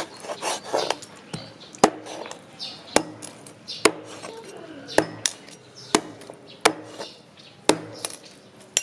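Meat cleaver chopping pork ribs through the bone on a wooden cutting board: sharp strikes about once a second, with lighter knocks between.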